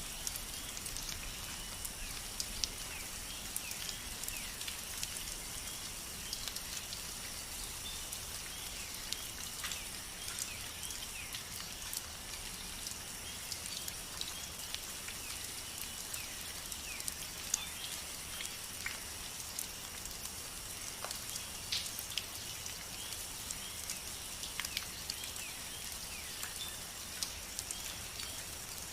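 Steady rainfall, an even hiss with many separate drops ticking sharply on a surface.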